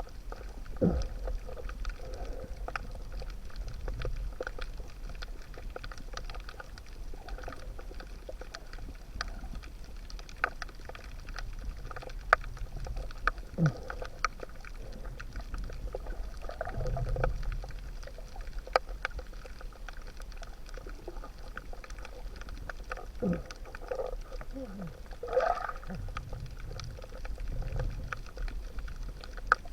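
Underwater ambience: a steady low rumble with scattered sharp clicks and a few short gurgling, sliding sounds, the loudest about a second in, around 13 to 14 seconds in, and near 25 seconds in.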